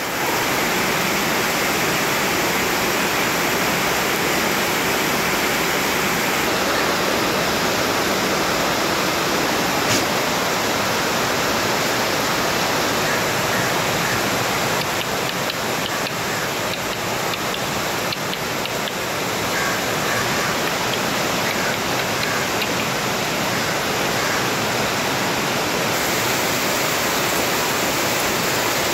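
Heavy rain falling steadily, drumming on and streaming off corrugated metal roofing.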